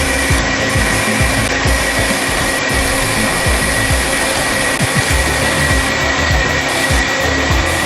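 TRAU150 automatic metal-cutting bandsaw running a dry test cut through a bar, with no coolant. A steady blade-and-motor noise with a high whine held over it.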